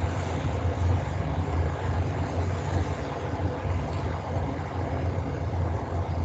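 Steady low rumbling noise with a constant hiss over it, the low rumble swelling and easing irregularly.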